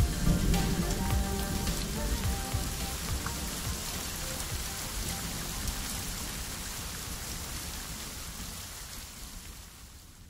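Rain-like hiss with scattered ticks under the fading last notes of a song's outro, the whole dying away slowly to silence by the end.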